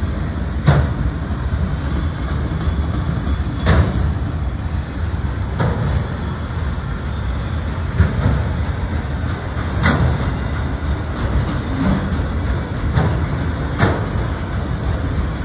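Freight train's autorack cars rolling past, a steady rumble with sharp wheel clacks on the track about every two seconds.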